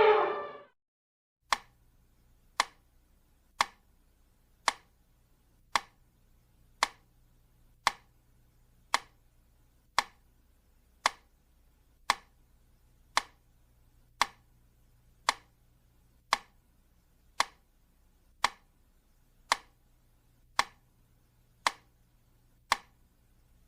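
A metronome ticking at a slow, steady tempo, a little under one tick a second, about twenty-one sharp clicks in all. At the very start the tail of an elephant's trumpeting call fades out before the ticking begins.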